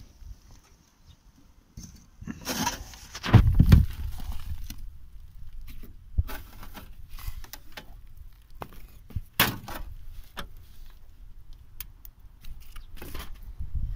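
Loose chimney bricks being shifted by hand: scraping of brick on brick and crumbling mortar, with rubble clattering, loudest in a bout about three seconds in and with single sharp knocks later. The mortar has crumbled away because too little cement went into it.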